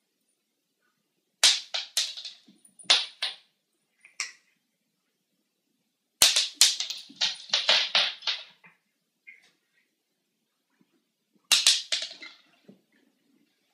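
Three bursts of rapid, sharp clicking and clattering as a cat works at something small and hard on a tiled floor, each burst lasting one to two seconds, a few seconds apart.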